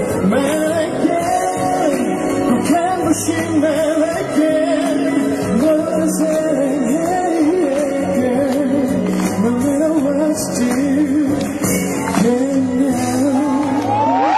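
Male singer's live vocal over band accompaniment in a pop song, the melody sliding and ornamented. Near the end the voice climbs to a long held high note.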